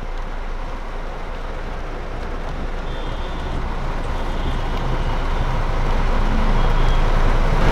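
Slow street traffic of auto-rickshaws and motorcycles moving through a flooded road: a steady engine rumble with the wash of water, growing louder toward the end.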